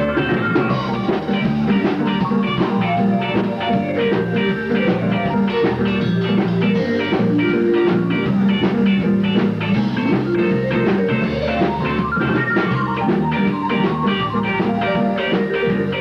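Live band playing electric guitar and keyboard over a steady drum beat, with a rising and falling melodic run about three quarters of the way through.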